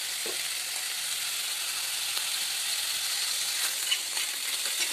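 Onion, garlic and ginger masala sizzling steadily in oil in a kadai as it is sautéed (kosha), with a spatula scraping and tapping the pan a few times near the end.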